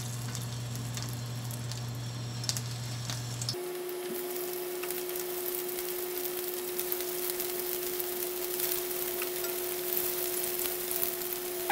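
Pieces of tempe bacem (tempeh braised in sweet soy sauce and palm sugar) frying in hot oil in a nonstick pan: a steady sizzle with small crackles. The sizzle grows fuller about three and a half seconds in as more pieces go into the oil.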